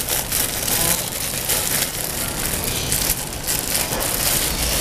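Thin plastic bag crinkling as a hand squeezes and shakes broken tofu pieces out of it into a plastic bowl, with a steady crackle of small clicks throughout.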